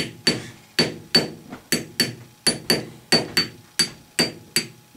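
Brass-headed hammer giving light, quick taps around a ball bearing pressed into a heated casting, about two or three taps a second, each with a short metallic ring. The taps seat the bearing all the way down in its bore.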